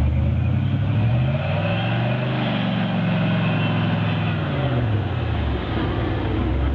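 Engine of a modified Toyota FJ40 Land Cruiser rock crawler working up a granite slab at crawling speed. Its revs rise about one and a half seconds in, hold, and drop back about five seconds in.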